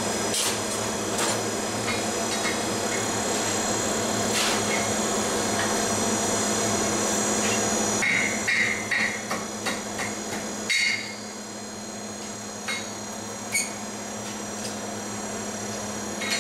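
Ball-pein hammer striking a glowing bar held in tongs on a steel anvil: a few scattered blows, then a quick run of about eight ringing strikes around the middle, then a few more spaced blows, over a steady hum.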